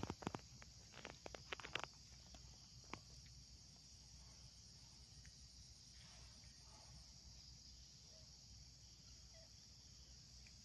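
Faint, steady high-pitched drone of an insect chorus, with a quick scatter of sharp clicks and crackles in the first two seconds and one more click about three seconds in.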